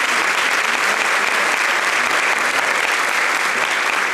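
Audience applauding in a concert hall, a dense, steady clapping.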